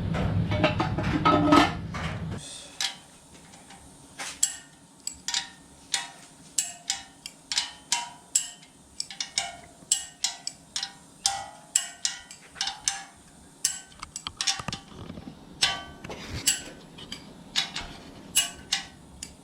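Small steel engine parts clicking and clinking in a steady run of sharp knocks, about one or two a second, each ringing briefly, as LS1 rocker arm trunnion parts are worked on. A louder low hum fills the first two seconds.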